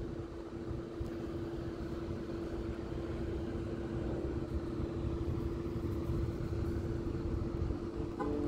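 A car engine idling: a steady, even hum over a low, uneven rumble.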